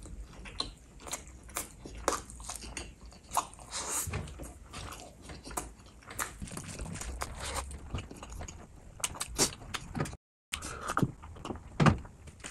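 Close-miked chewing and biting of spicy chicken feet eaten by hand: many irregular wet smacks and crunchy clicks. The sound cuts out completely for a split second about ten seconds in.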